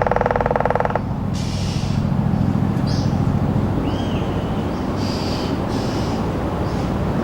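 Helicopter rotors and engine droning overhead, with a laced woodpecker's rapid drumroll on a tree trunk that stops about a second in. Short high bird calls come a few times later on.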